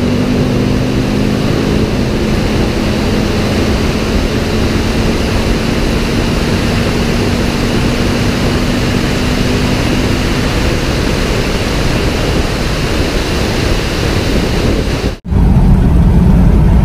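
Wind rushing over a camera mounted on the outside of a moving car, with a steady engine drone underneath that fades out about two-thirds of the way through. Just before the end it cuts to inside the cabin, where a deeper, louder engine and road rumble takes over.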